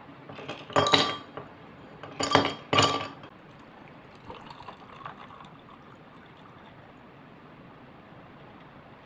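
Ice cubes dropped into a tall drinking glass: three sharp clinks in the first three seconds. Water is then poured from a bottle over the ice, a faint pour.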